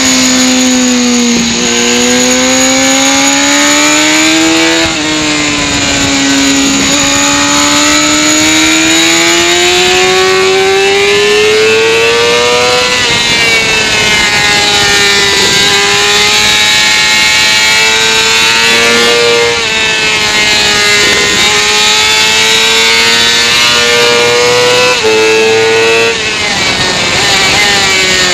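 Sport motorcycle engine running hard on a race track. It rises in pitch as the bike accelerates and drops sharply at gear changes, about five seconds in and again near the end, and falls more gradually in between as the rider eases off.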